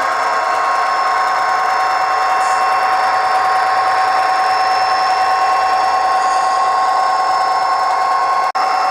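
Sound decoder playing an EMD SD45 diesel locomotive's 20-cylinder engine sound through an HO-scale model's small speaker: a steady engine drone with a few held tones over it, cutting out for an instant near the end.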